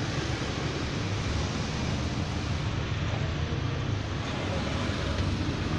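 Steady low rumbling background noise with no distinct strokes or tones.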